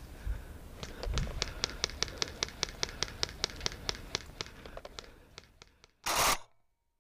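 A steady run of sharp clicks, about four or five a second, fading away over several seconds, then a short loud burst of noise near the end.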